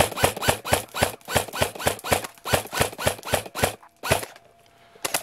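Upgraded G&G Combat Machine airsoft AEG firing .30 BBs in rapid semi-automatic, a sharp crack with a short gearbox cycle at about five shots a second, stopping near the end for two last single shots.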